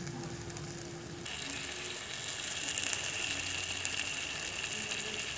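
Mung dal with Malabar spinach stalks coming to the boil in a kadai: a steady bubbling and sizzling hiss, which grows brighter a little over a second in.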